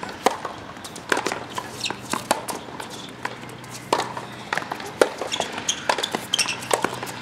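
Tennis ball being served and rallied on a hard court: sharp knocks of racket strings hitting the ball and the ball bouncing, one every half second to second, the first about a third of a second in, with brief high squeaks near the end.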